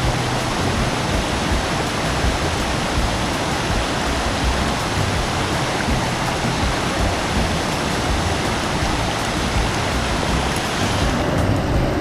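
Rushing water from a waterfall: a loud, steady hiss that grows duller near the end.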